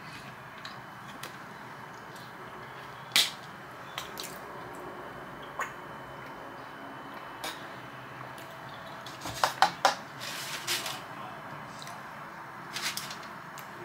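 Kitchen clatter: scattered clinks and knocks of dishes and cutlery over a steady background hiss, with a quick run of several louder clinks about nine to ten seconds in.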